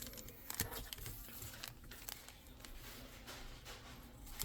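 Faint handling noises of card packaging: a few soft clicks and light crinkling as boxes and packs are moved about.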